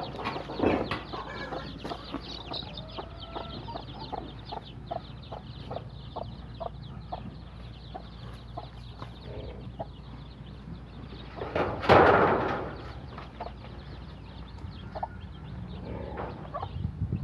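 Native chicken chicks peeping over and over, with a hen clucking among them. One loud, noisy burst comes about twelve seconds in.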